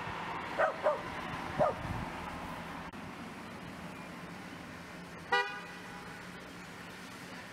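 Steady street traffic, with three short yaps from wirehaired dachshunds in the first two seconds and a single short car horn toot a little past halfway.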